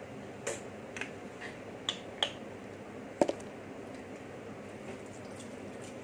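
Wet hands working soap and splashing water at a washbasin: a few short, sharp wet clicks and splashes over a faint steady hiss, most of them in the first half.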